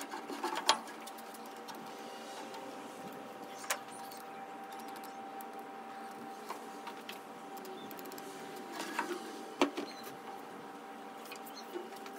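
Quiet handling of an MDF board on a bandsaw's metal table, with a few sharp knocks and scuffs as it is set down, shifted and lifted. A steady faint hum runs underneath.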